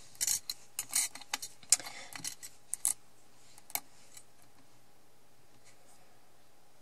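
Light clicks and rustles of a thin metal cutting die and card stock being handled and laid on a cutting mat, clustered in the first three seconds with one more click about a second later.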